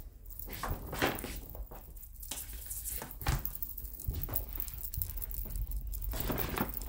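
Irregular rustling and soft thuds of a kitten scampering and pouncing after a wand toy on a backdrop.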